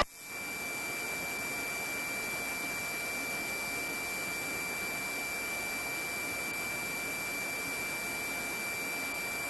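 Open police radio channel between transmissions: a steady high-pitched tone over even static hiss.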